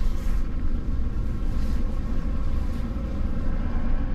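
Pickup truck engine running with a steady low rumble and hum.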